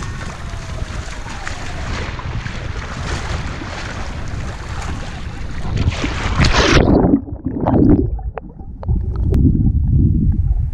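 Wind buffeting the microphone over a steady rush of sea surf. About two-thirds of the way in the hiss cuts off abruptly, leaving low rumbling wind gusts and a few sharp clicks.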